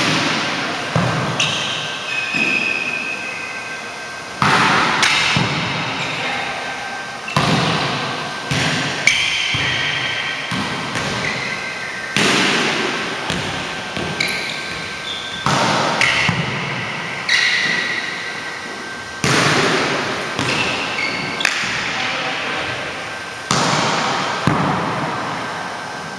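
Volleyballs smacked during a hitting and passing drill in a gymnasium: sharp hits every one to two seconds, each ringing on in the hall's echo, with short high squeaks between some of them.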